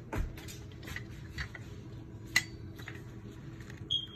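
Kitchen utensils handled on a countertop: scattered light clicks and knocks, one sharper click about two and a half seconds in, and a brief high squeak near the end.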